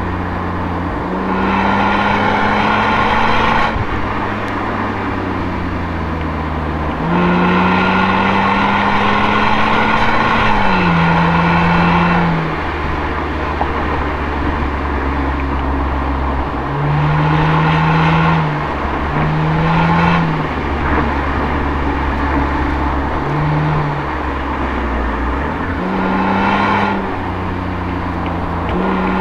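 Toyota Altezza's 1G-FE inline-six through an Apexi aftermarket exhaust, heard at the tailpipe while driving. The exhaust note rises and gets louder in several stretches of throttle, dropping back between them to a quieter, lower hum as the driver eases off for the bends.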